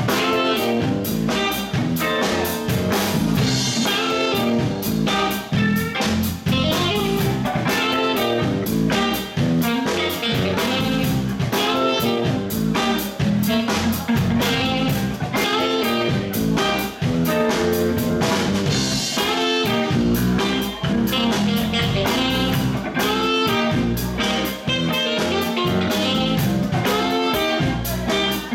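Live funkabilly band playing an upbeat instrumental passage: electric guitar, bass and drum kit with a steady beat, and a saxophone.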